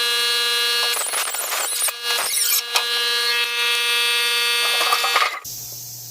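Electric grinder with a wire wheel running at a steady whine, with scratchy rasping as the wheel scrubs the refrigerator's steel clean for welding. It cuts off sharply about five seconds in, leaving a low hum.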